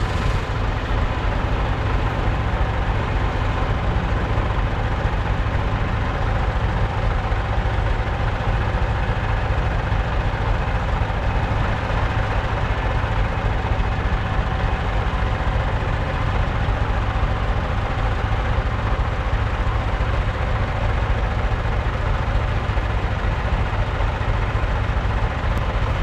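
Engine of a Frontier OS27 portable bandsaw mill running steadily at idle.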